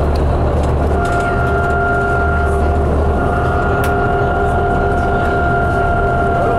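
Cabin sound of a 2005 New Flyer D60LF articulated bus with a Caterpillar diesel engine, running steadily at speed. The engine and drivetrain give a steady low drone with road noise, and a whine of a few held tones sets in about a second in.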